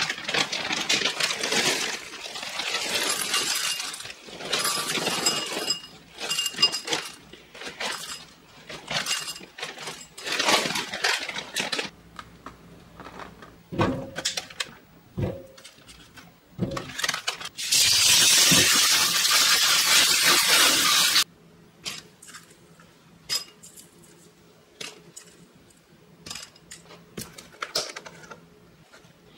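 Chocolate cereal rings poured from the bag into two stoneware bowls, rattling and clinking in several pours over the first twelve seconds. Then a few knocks, and a kitchen tap runs for about three and a half seconds, rinsing blueberries in a stainless-steel strainer in the sink, followed by small scattered clicks.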